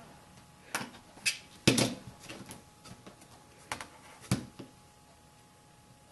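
A few sharp plastic clicks and taps from an acrylic quilting ruler and a rotary cutter being handled and set down on a cutting mat, about five strong ones in the first four and a half seconds, with fainter ones between.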